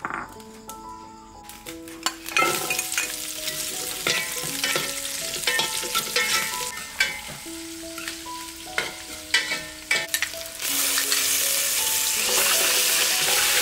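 Shallots, lemongrass and lime leaves sizzling in hot oil in an aluminium pot, starting about two seconds in, with a metal ladle stirring and scraping against the pot in irregular clicks. Near the end the sizzle turns louder and steadier as fish paste goes into the oil.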